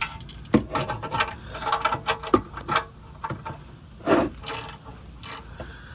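A ratchet wrench clicking and metal tools knocking in uneven bursts while a tight engine oil drain plug is being worked loose.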